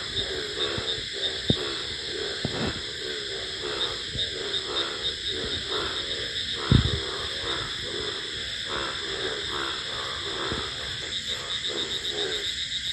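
A chorus of many frogs croaking in quick repeated calls, over a steady high-pitched trill. A few soft knocks, and one louder thump about halfway through.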